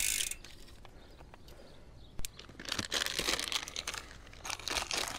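Rustling, crinkling handling noise from hands working on a broken bicycle chain and its small parts, with one sharp click about two seconds in.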